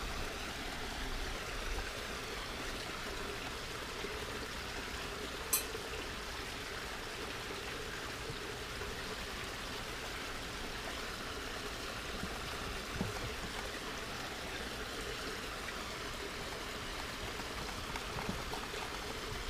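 Steady, even background noise like running or trickling water, with a single faint sharp click about five and a half seconds in.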